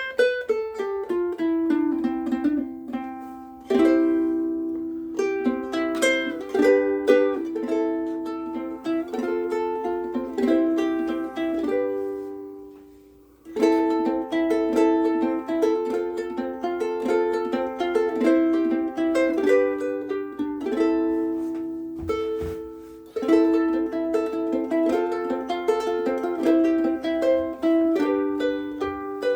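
Pops Pineapple Sunday ukulele, with a spruce top, pine back and sides and UkeSA strings, being played: a tune of plucked notes and chords ringing out, the instrument held loosely so its back can resonate. Twice, about twelve and twenty-two seconds in, the playing stops and the last chord rings away before the next phrase.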